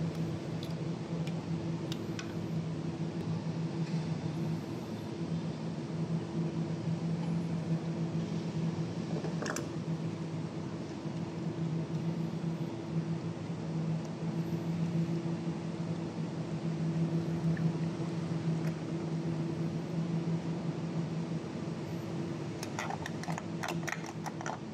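Steady low mechanical hum, with a single light click about nine and a half seconds in and a few light clicks near the end.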